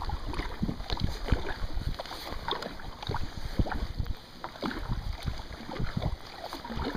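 Kayak paddle strokes: the blades dipping and splashing in the water at an irregular pace, with drips and small knocks, over gusts of wind rumbling on the microphone.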